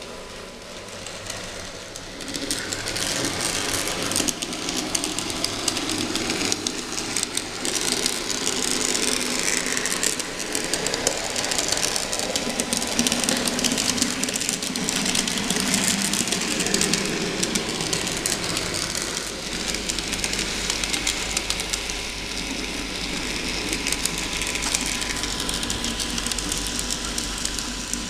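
Model tram running along the layout's track: the small electric motor and gearing whirring, with the wheels rattling and clicking over the rail joints and turnouts. It comes up about two seconds in and then runs on steadily.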